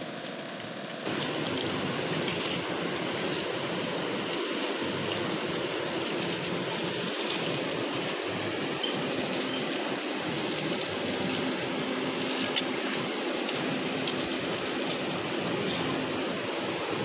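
Steady rushing noise with a few faint ticks, starting abruptly about a second in.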